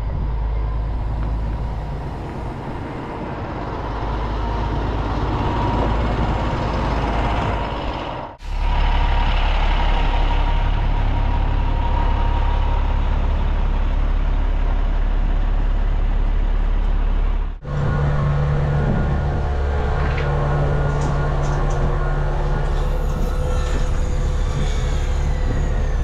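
Milk tanker truck's diesel engine running steadily with a low drone, broken off twice briefly.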